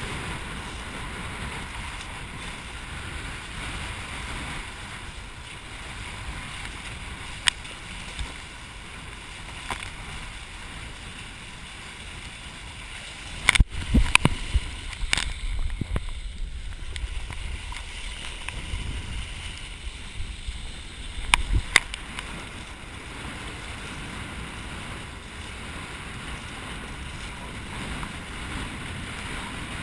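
Steady rush of water and wind noise as a kiteboard rides across choppy water, with a cluster of sharp splashes and knocks about halfway through and two or three more a few seconds later.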